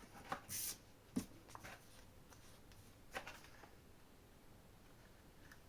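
Small objects being handled and put back into a box: a few light clicks and taps, with a brief rustle about half a second in and a sharper click around three seconds in.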